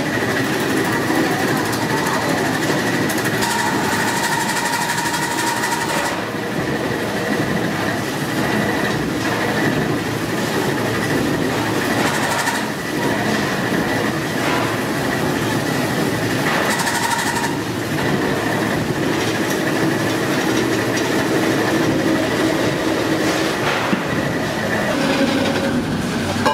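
Metal-forming press and workshop machinery running: a steady clattering din with a constant high whine that stops near the end.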